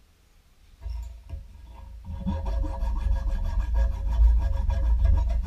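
Hand file scraping back and forth over a small metal hinge bracket on a steel bench top, deburring it. Near quiet at first, a knock about a second in, then a steady run of filing strokes from about two seconds in.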